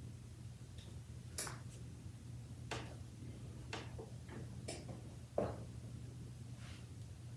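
Quiet handling clicks and taps, about six scattered over several seconds, as a hoodie is lifted and pulled onto a heat press. The loudest is a sharp knock about five and a half seconds in. A steady low hum runs underneath.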